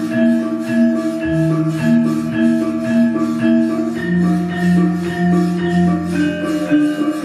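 Javanese gamelan orchestra playing: struck metallophones ring out a steady, quick run of notes over sustained lower tones.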